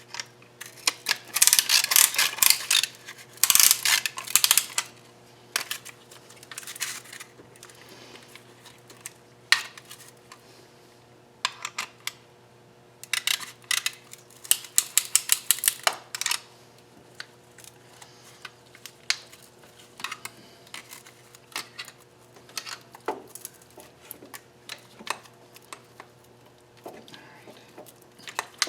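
Quarter-inch-drive ratchet clicking in rapid runs, tightening a piston ring compressor around the piston rings, with scattered metal clinks between runs. A faint steady hum sits underneath.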